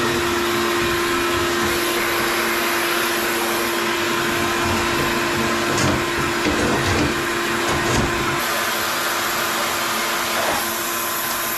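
Electric motor and fan running steadily, a constant hum under loud rushing air, with the airy part easing slightly about eight seconds in.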